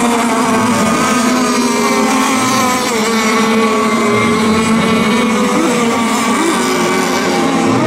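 Several radio-controlled racing boats running flat out, their engines a steady high-revving buzz, with pitches that waver slightly as the boats corner and straighten.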